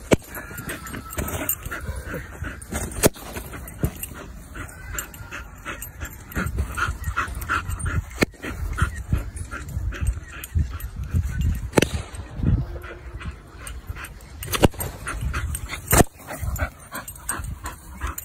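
A dog whining and yipping in short high notes, with several sudden sharp pops spread through: balloons bursting as a Bull Terrier bites them.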